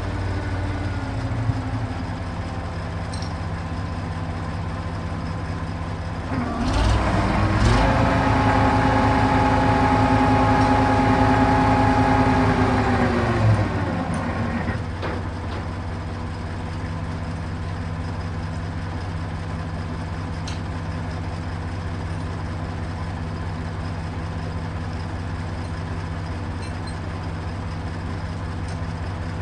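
Truck crane's engine idling, then throttled up to a higher steady speed for about seven seconds before dropping back to idle, as when the crane is working. A few light knocks sound in between.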